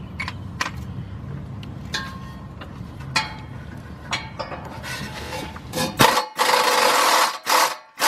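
Scattered clicks and knocks of a socket and extension against the exhaust, then from about six seconds a power tool on a 14 mm exhaust bolt: one long burst, then two short ones, as it backs the bolt out.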